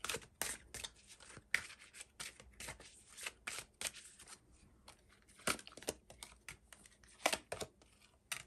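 A deck of tarot cards handled and shuffled by hand: an uneven run of short papery slaps and flicks, with a few louder snaps late on as cards are laid down.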